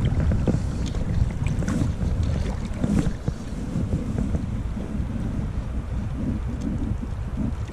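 Wind rumbling on the microphone over the steady rush of river water around a wading angler.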